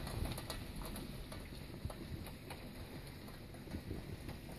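Heavy rain falling in a thunderstorm: a steady hiss with scattered ticks of drops pattering.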